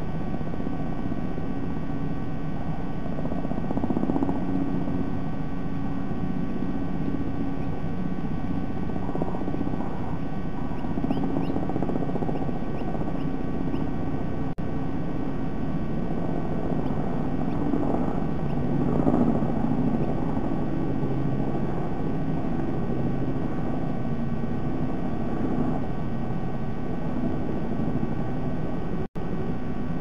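Steady rumbling outdoor background noise with a faint electrical hum, picked up by a nest camera's microphone. The audio cuts out briefly twice, once about halfway and once near the end.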